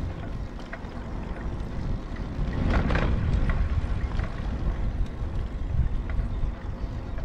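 Low rumble with wind buffeting the microphone, louder from about two and a half seconds in.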